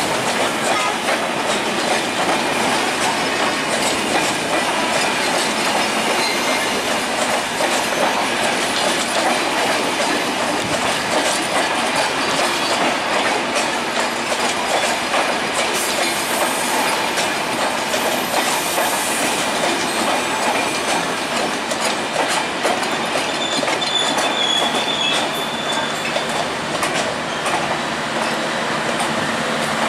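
Broad-gauge passenger coaches of a Bangladesh Railway intercity express rolling steadily past, wheels clicking over the rail joints, with a brief high squeal of wheels on rail about three-quarters of the way through.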